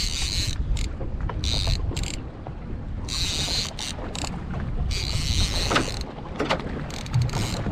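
Wind buffeting the microphone over a steady low rumble on a boat at sea, with short hissing bursts every second or two.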